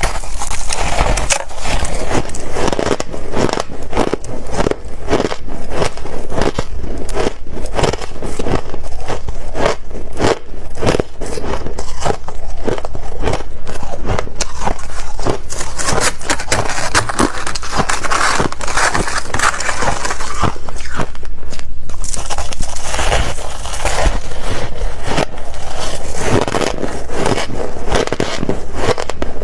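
A person biting and chewing freezer frost close to the microphone: dense, crisp crunching crackles in quick succession, with big bites.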